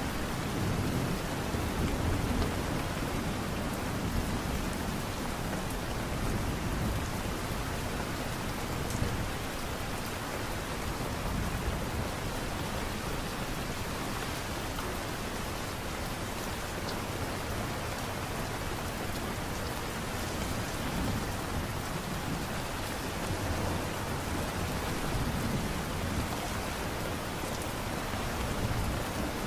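Steady light rain falling, an even hiss of drops, with a low rumble that swells up a few times.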